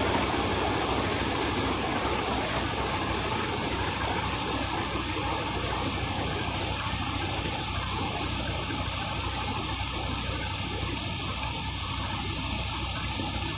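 Steady rushing of floodwater flowing over a road, with a low, even engine hum underneath.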